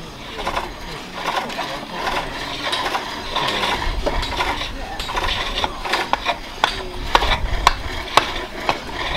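Several pole lathes being worked at once: hook tools scraping and cutting green-wood bowl blanks, with many sharp clicks and knocks from the lathes and tools. A low rumble joins in about four seconds in.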